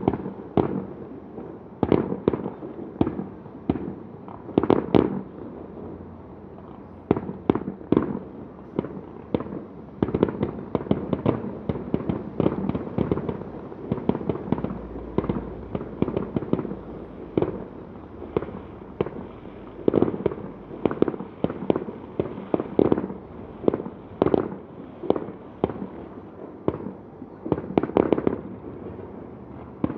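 Aerial fireworks bursting in a rapid, irregular barrage of bangs, several a second. There is a short lull about six seconds in and a denser flurry near the end.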